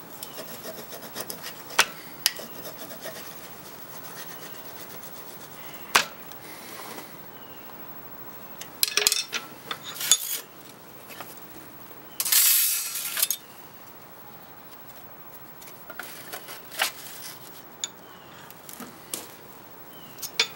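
Hardened steel burnisher rubbing along the edge of a scraper made from an old Japanese saw blade, turning a hook on it. There are scattered sharp clicks of steel, a denser stretch of rubbing about nine seconds in, and a louder scrape lasting about a second around the middle.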